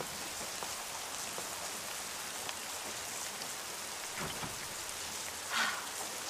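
Steady rain falling, an even hiss of rain on hard surfaces with scattered drops, and one brief louder sound about five and a half seconds in.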